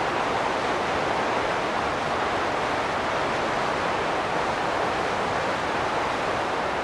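Wind blowing steadily: an even hiss with no separate gusts rising or falling.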